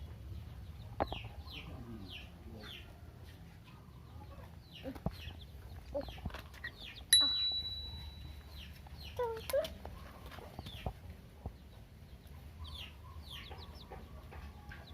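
Chickens peeping over and over in short, high calls that slide downward, with a few lower calls about nine seconds in. About seven seconds in, a sharp click with a brief ringing tone is the loudest sound.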